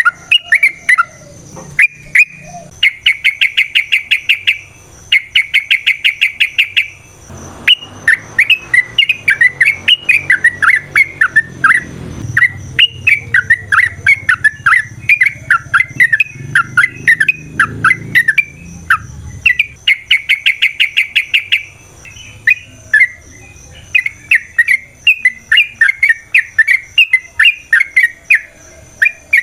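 Yellow-vented bulbul (trucukan) singing a long, fast, chattering song: quick rattling trills alternate with bubbly warbled phrases, with hardly a pause. A faint low rumble sits under the song in the middle of the stretch.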